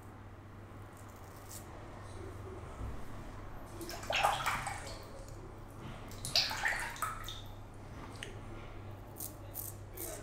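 Water splashing as a safety razor is rinsed in the sink, in two short bursts about four and six and a half seconds in.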